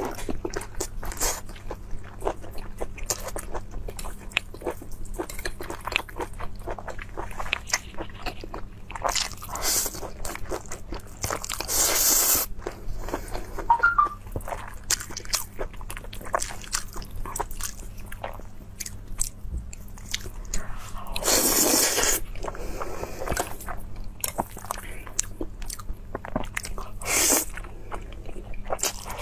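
Close-miked eating sounds: wet chewing and lip-smacking with many small clicks, broken by a few long slurps of noodles.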